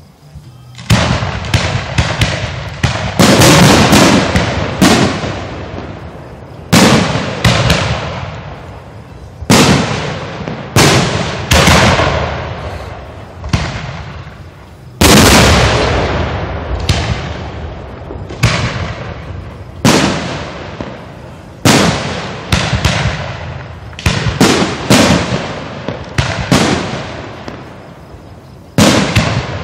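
Aerial fireworks shells going off close by: a rapid string of loud bangs, one every second or two, each trailing off before the next, starting about a second in.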